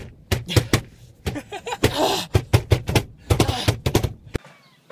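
A fast, rhythmic percussive beat of sharp hits with a deep thump under them, cutting off abruptly near the end.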